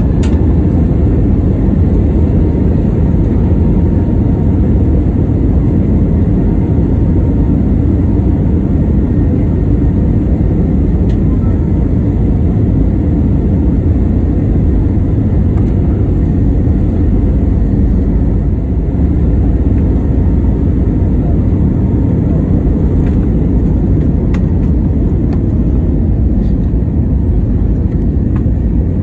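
Airbus A320neo cabin noise during the takeoff roll: the jet engines at takeoff power and the wheels on the runway make a steady, loud low rumble, heard from inside the cabin.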